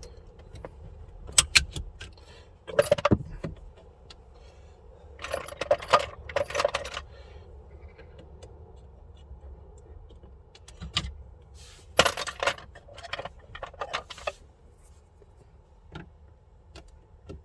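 Scattered metallic and plastic clicks, rattles and knocks as an old car radio head unit is worked out of its dashboard slot with removal keys and its connectors handled, in short clusters with quieter gaps between.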